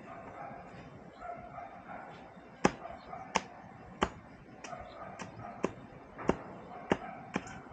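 Bamboo being chopped with a knife against a log: a series of about nine sharp, short strikes, roughly one every two-thirds of a second, starting a little under three seconds in.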